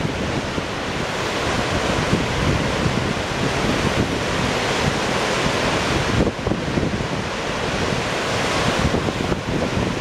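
Storm waves surging and breaking white against a rocky lakeshore in a steady, continuous wash, with wind buffeting the microphone in an irregular low rumble.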